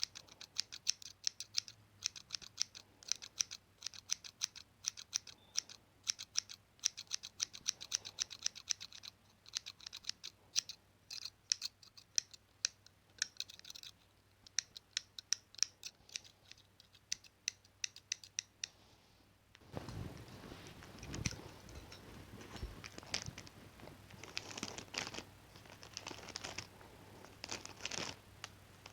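Scissors snipping in a rapid run of short, sharp cuts for about the first two-thirds. The snipping then stops and gives way to louder crinkling and rustling, as of material being handled.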